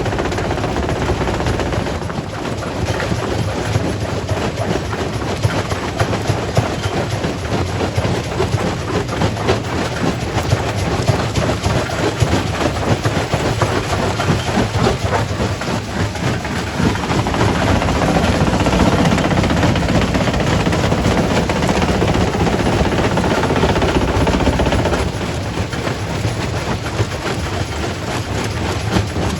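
Quarry primary rock crusher running and breaking rock: a dense, irregular clatter of knocks over a steady low rumble, louder for several seconds in the second half.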